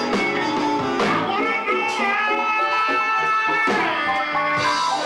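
Live soul band playing an instrumental passage: a lead instrument holds long, slightly bending notes over the rhythm section, with a new phrase starting near the end.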